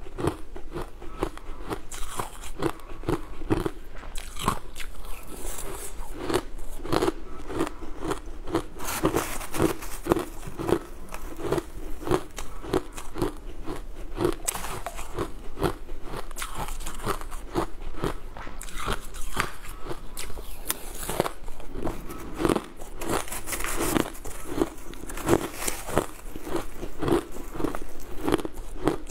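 Crushed ice being chewed and crunched between the teeth, close to a clip-on microphone: a dense, continuous run of sharp crackling crunches.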